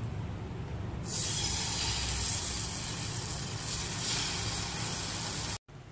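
Beaten egg with chopped vegetables sizzling as it is poured onto a hot, oiled non-stick pan. The hiss starts suddenly about a second in and stops abruptly near the end.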